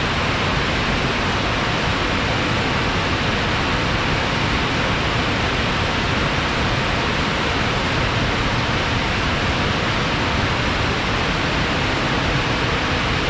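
Fast-flowing water after rain, rushing in a steady, unbroken stream.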